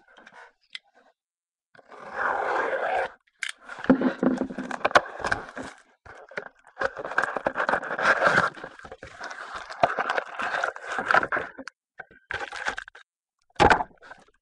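Trading-card packaging being opened by hand: plastic wrapper crinkling, scraping and tearing in irregular bursts, with a sharp click near the end.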